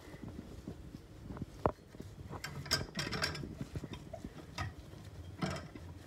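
A cloth rubbing and wiping a chrome bathroom faucet: irregular scrubbing and small clicks and knocks, with a sharp tap about two seconds in and busier rubbing around the middle and near the end.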